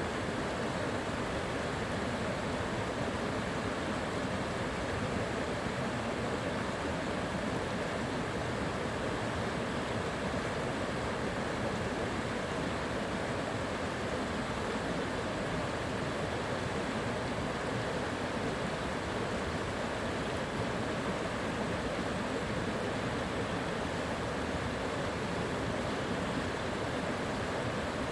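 River water flowing and rushing steadily, an even wash of sound with no breaks.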